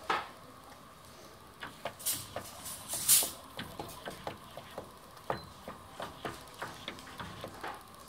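Maine Coon kitten pawing at a window: a couple of louder scraping swipes about two and three seconds in, then a run of light claw taps, about two or three a second.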